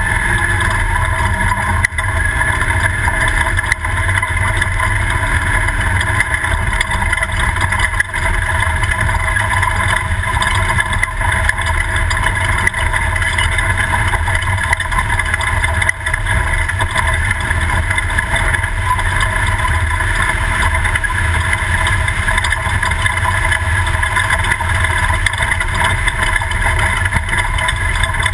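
Toyota prerunner desert race truck under way, its engine and drivetrain running loud and steady with no let-up.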